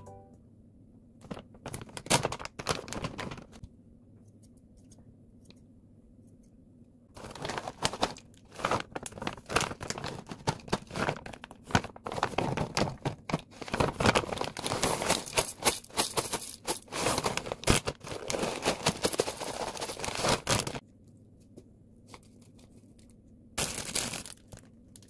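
Plastic bag of mixed nuts rustling and crackling as handfuls are taken out and dropped into a plastic yogurt tub. There is a short burst a second or two in, a long stretch of dense rustling and clicking from about seven seconds to about twenty, and a brief burst near the end.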